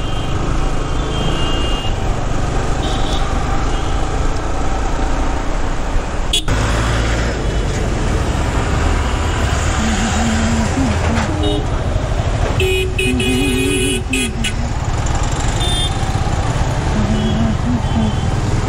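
Wind rush and road noise of a motorcycle ride on a helmet-mounted microphone, with vehicle horns honking in the traffic several times, the longest about 13 seconds in. A single sharp knock about six seconds in.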